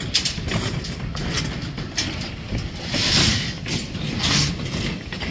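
Steel rebar clattering and scraping as bars are handled and laid on a beam cage, with irregular sharp clanks over a rough low rumble.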